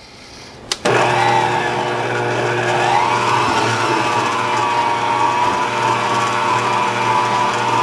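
Electric stand mixer switched on with a click about a second in, then running steadily with a motor hum and a whine that wavers and settles. Its whisk is beating mint buttercream.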